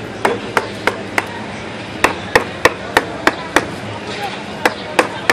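Wooden mallet striking a carving chisel held in a wooden bowl blank, hollowing it out. Sharp knocks come about three a second in runs of three or four, with brief pauses between the runs.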